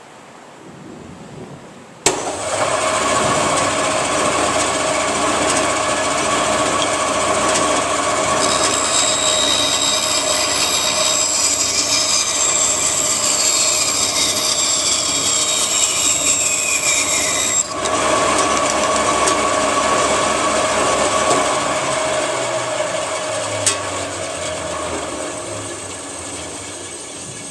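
Band saw starting abruptly and running with a steady hum, then cutting a wooden board for about nine seconds. The cut adds a high whine with falling tones and stops suddenly when the cut is through. Near the end the saw gradually winds down.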